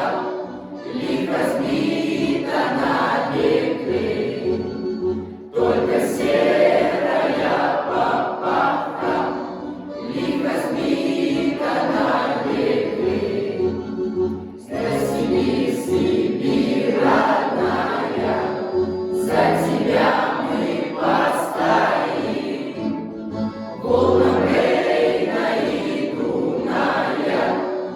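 A choir singing a song in phrases, with short pauses between verses.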